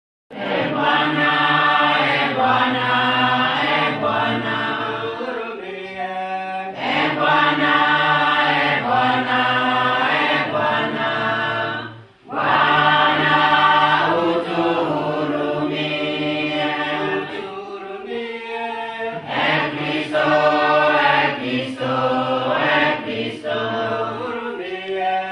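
A group of voices singing a chant-like song, in repeated phrases about six seconds long with short breaks between them.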